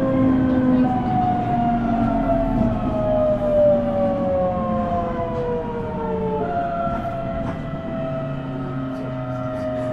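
Toyo Denki GTO-VVVF inverter and traction motors of a JR East E127-series electric train (KuMoHa E127-13) whining, heard from inside the car near the floor. The whine falls steadily in pitch as the train slows, typical of electric braking on the approach to a station. It jumps back up in pitch about a second in and again about six and a half seconds in, as the inverter changes pulse mode, over running noise from the wheels and rails.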